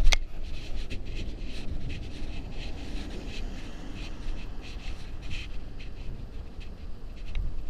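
Riding a bicycle: a steady low rumble of wind and road noise on the microphone, with irregular light clicks and crackles from the bike and tyres, and a sharp click right at the start.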